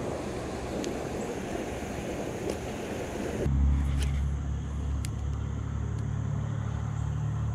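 Water rushing over a concrete spillway, a steady hiss. About three and a half seconds in it cuts off abruptly, replaced by a low, steady mechanical hum with a few light clicks.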